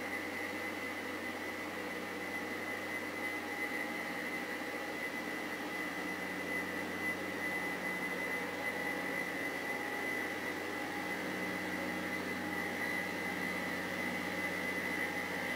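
Rail grinding train working the track: its rotating grinding stones rasp against the rail with a steady high whine over the low running of its engine, growing slightly louder as it comes closer.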